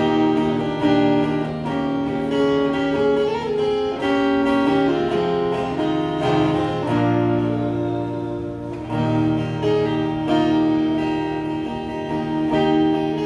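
Solo acoustic guitar playing an instrumental break in a song, with chords changing every couple of seconds and no singing.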